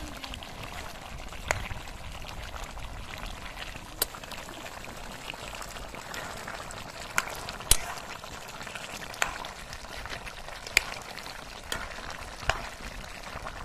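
Chicken curry simmering and being stirred with a steel ladle in a metal pan over a wood fire: steady bubbling and sloshing of the gravy, with sharp clinks of the ladle against the pan every second or two.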